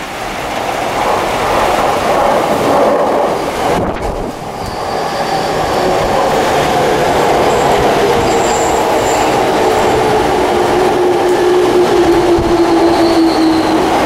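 A JR Yamanote Line electric train pulling into the platform, its wheels and motors running loudly. From about five seconds in, a motor whine falls steadily in pitch as the train brakes to a stop, with a few faint high squeaks.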